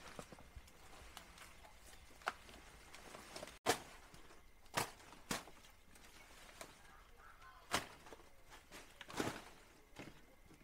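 About six sharp knocks at irregular intervals over a faint background, the loudest about three and a half seconds in.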